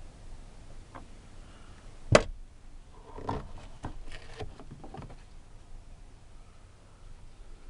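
Sharp clicks and knocks of hands and a screwdriver working on a car's plastic interior door trim: one loud click about two seconds in, then a run of lighter clicks.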